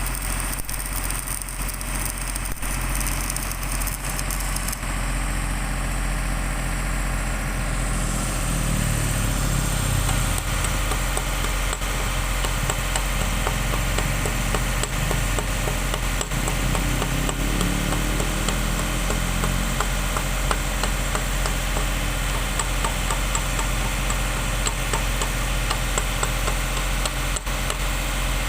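Arc welding a flange onto a steel pipe: the fine crackle of the arc over a steady low machine hum.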